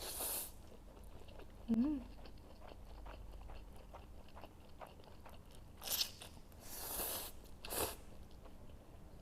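Close-up mouth sounds of someone eating instant noodles: chewing, with a short hummed 'mm' about two seconds in and a few louder sucking or slurping sounds near the end.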